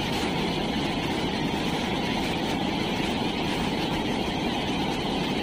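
Fast mountain torrent rushing over boulders: a steady, even rush of white water.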